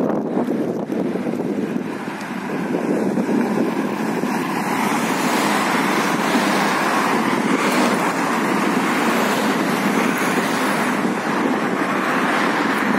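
Road traffic noise of cars driving past on a city street: a steady, even noise that swells about three seconds in.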